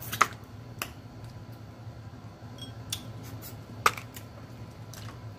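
Scattered sharp clicks and cracks, roughly a second apart with the loudest a little under four seconds in: crab shells being snapped and picked apart by hand. A low steady hum runs underneath.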